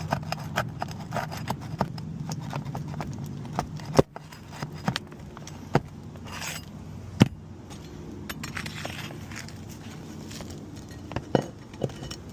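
Metal roof snake working under asphalt 3-tab shingles to pry out roofing nails: scraping and clicking, with a few sharp metallic knocks, the loudest about four and seven seconds in. A steady low hum runs underneath.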